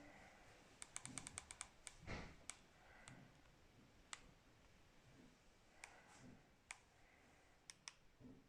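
Near silence with faint sharp clicks: a quick run of about eight a little after a second in, then single clicks every second or so.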